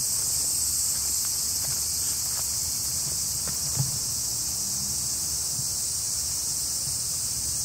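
Steady, high-pitched chorus of insects, a dense unbroken hiss, with a single soft thump about four seconds in.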